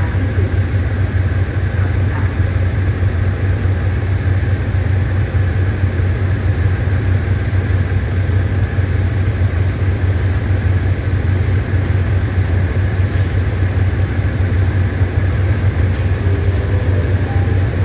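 Diesel engines of a Sprinter air-conditioned railcar set running with a steady low drone as the train moves slowly out along the platform.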